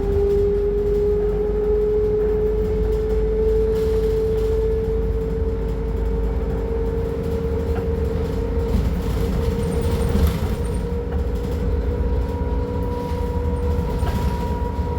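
Scania K310UB city bus running under way: a deep diesel rumble with a strong whine that slowly rises in pitch, joined by a fainter higher whine in the second half.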